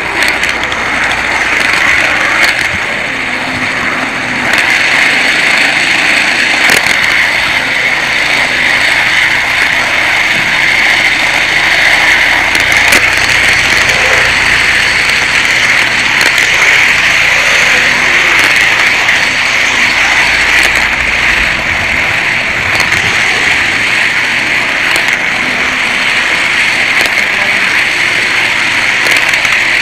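Steady, loud whirring of an HO scale model train's motor and wheels running on the track, picked up by a camera riding on the train. It gets a little louder about four seconds in.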